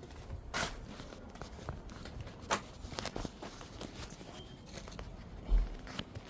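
Scattered light clicks and knocks, with one heavier low thump about five and a half seconds in.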